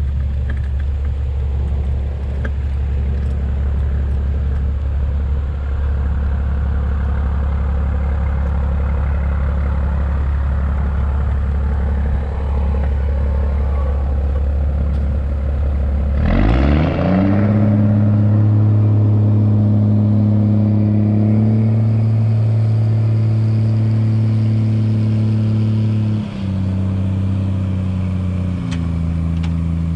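Chevrolet C8500 dump truck's engine idling with a low steady hum, then about halfway through revving up and holding at a high steady speed to drive the hydraulic hoist that tips the bed and dumps a load of sawdust. The revs step down twice near the end.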